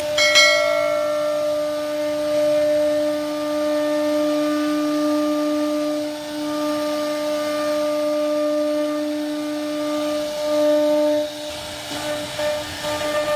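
CNC router spindle running with a steady high whine while the bit cuts grooves into a wooden panel, the tone dipping briefly twice. Near the end a rougher, uneven cutting noise joins in.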